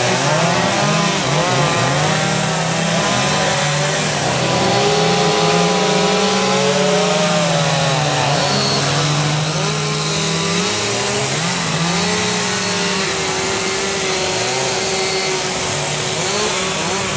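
Several two-stroke chainsaws running at once, each revving up and down on its own as carvers cut into wooden blocks, so the engine pitches overlap and shift constantly.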